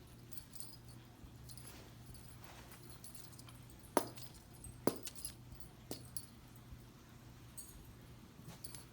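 Cat playing with a wand teaser toy: faint scattered rattling and clicking, with three sharp knocks about four to six seconds in, over a steady low hum.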